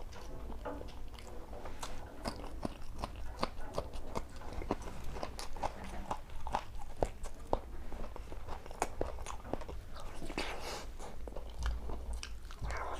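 A person chewing and biting food close to the microphone, with many small, sharp crunches.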